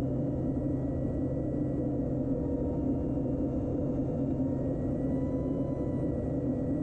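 Steady drone of a KT-1B Woongbi's turboprop engine and propeller in flight: a constant low hum with a few faint, steady higher tones, unchanging throughout.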